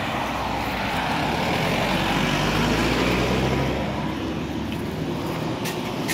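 Road traffic: a motor vehicle's engine hum and tyre noise swelling as it passes close by, loudest about halfway through, then fading.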